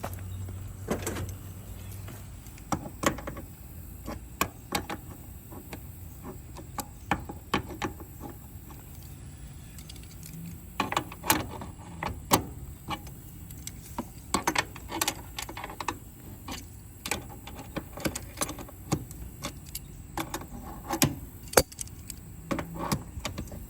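Irregular clicks, taps and clatters of small metal tools and parts being handled, some in quick clusters, over a low steady hum.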